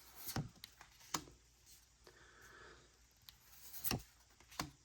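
Pokémon trading cards being handled and slid against one another, faint, with a few short clicks of card edges and a soft sliding rustle about two seconds in.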